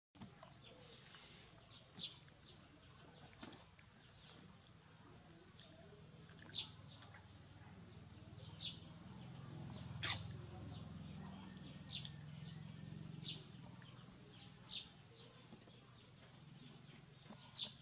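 Short, high-pitched chirps from a small animal, about ten of them, one every second or two, faint against a low background hum.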